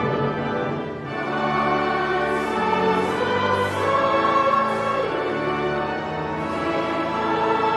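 Choral music with orchestral accompaniment: voices holding long notes over sustained instruments.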